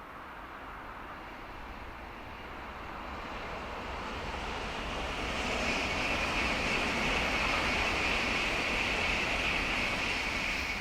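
A freight train running past on the line. Its rush of wheel and rail noise builds over the first five seconds or so, holds at its loudest with a high hiss on top, and begins to fade near the end.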